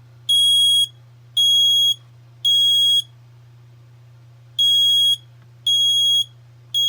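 Kidde smoke alarm sounding on test: loud, high-pitched beeps in the three-beep evacuation pattern, three half-second beeps, a pause, then three more, with a finger held over the sounder hole. The beeping shows the alarm works.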